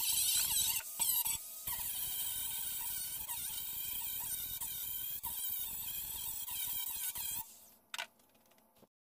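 Angle grinder with an abrasive disc grinding down weld seams on the steel windshield frame of a 1954 VW Beetle, a high whine whose pitch wavers as the disc is pressed into the metal. The grinder stops about seven seconds in, followed by a single click.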